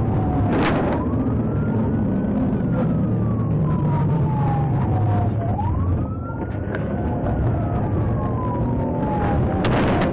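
Police car siren on a slow wail, rising and falling about every four to five seconds, over the steady rumble of the patrol car's engine and road noise during a high-speed pursuit. Two brief sharp noises, one just after the start and one near the end.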